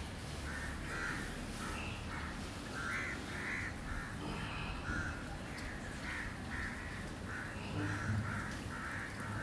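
Crows cawing over and over, about two harsh calls a second, over a low steady rumble.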